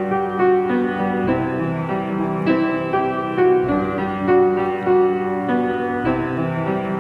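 Instrumental intro of a slow pop ballad: piano over sustained keyboard chords, the melody moving through single notes while the chords change every second or so, before any singing.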